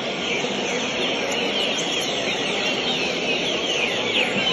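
Many songbirds chirping and whistling at once, with short rising and falling notes overlapping in a continuous chorus.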